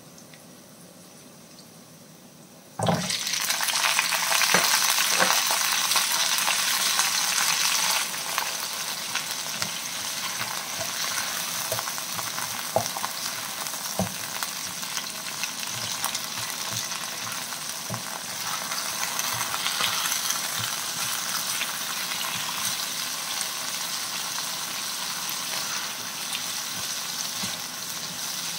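Raw chicken feet hit hot oil in a wok with sautéed onion, ginger and garlic, setting off a sudden loud sizzle about three seconds in. The frying carries on steadily and eases a little a few seconds later, while a spatula stirs the feet and now and then knocks against the pan.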